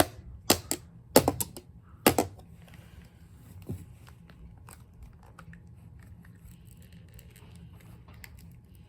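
Plastic hair dryer housing being pried apart: a few loud sharp clicks and cracks in the first couple of seconds, then lighter clicks and scraping as the tool works the seam.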